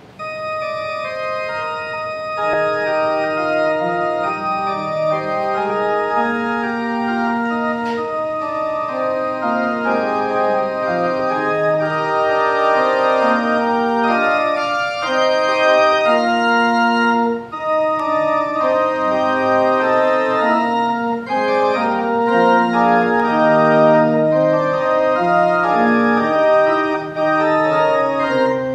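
Church organ playing sustained chords with a slowly moving melody over them, starting suddenly and breaking off briefly twice between phrases.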